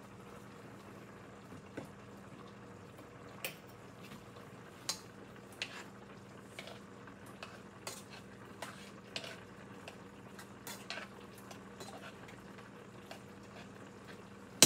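A spoon stirring in a pot, with scattered light clinks against the pot, over a steady low hum.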